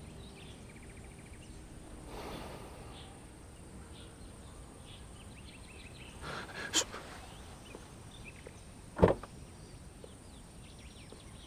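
Quiet outdoor ambience with faint scattered bird chirps. A sharp click comes about seven seconds in, and a short low thump about nine seconds in.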